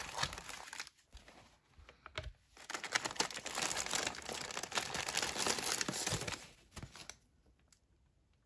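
Clear plastic wrapping crinkling and rustling as hands work a cardboard MRE entrée carton out of it, loudest in the middle and stopping about seven seconds in.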